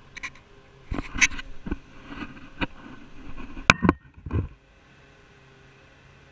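Clattering knocks, bumps and scrapes of a camera being handled and set in place on a rear-loader garbage truck, with a sharp knock a little before the four-second mark. After about four and a half seconds it gives way to a faint steady low hum of the truck idling.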